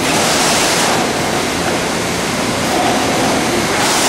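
Trumpf TC500R CNC punch press running: a loud, dense, steady mechanical noise, with a brighter hiss in the first second and again near the end.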